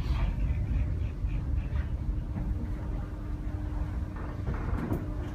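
Funicular car running slowly up its track into the station: a steady low rumble, with a thin steady hum for a couple of seconds in the middle and a few light clicks near the end.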